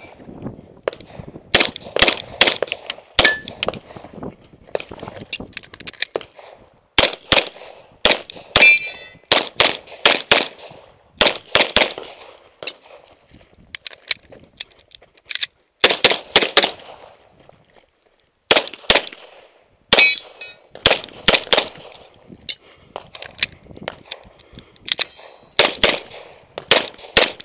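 Beretta 92F 9mm pistol fired in rapid strings of several shots with short pauses between strings. Some hits leave a brief ringing from steel plate targets.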